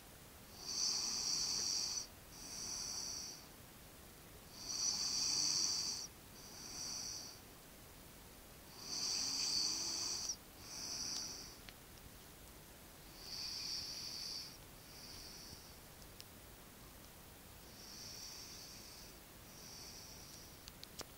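A sleeping person snoring in a steady rhythm: five breaths, each a longer hissing snore followed by a shorter one, about every four seconds. The last two are fainter.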